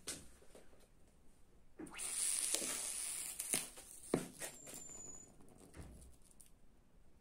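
Sodium metal reacting on hot water: a hissing sizzle for about a second and a half, broken by sharp pops, the loudest about four seconds in as the sodium flares into white smoke.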